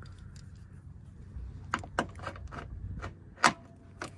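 Ratchet wrench with a 10 mm socket clicking in a few separate sharp clicks while working the bolts of a plastic engine cover, over a steady low hum.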